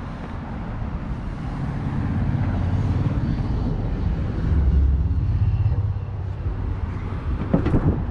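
Low engine and road rumble of a vehicle passing on a nearby road. It swells to a peak about five seconds in and then fades.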